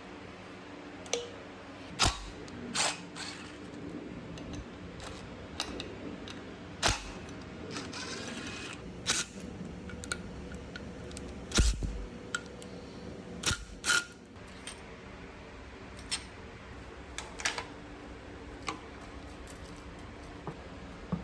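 Scattered sharp metallic clicks and knocks, a dozen or so at uneven intervals, of hand tools and engine parts being handled while an engine is taken apart.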